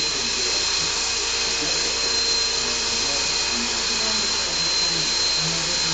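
Honey Bee King 2 electric RC helicopter running steadily, with a high motor whine over the whir of the rotor blades, as it hovers just above the floor.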